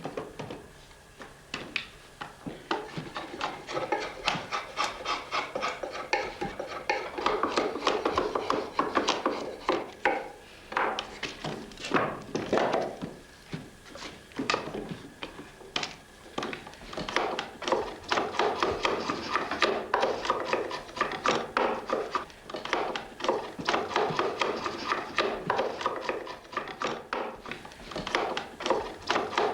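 Hand tool working wood: quick, repeated strokes of steel scraping and shaving across wood, with a few sharper knocks among them.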